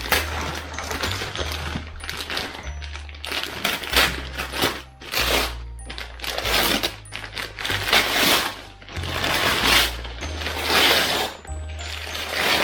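Wrapping paper being torn and crumpled off a gift in a series of loud crackling rips, over background music with a steady bass line.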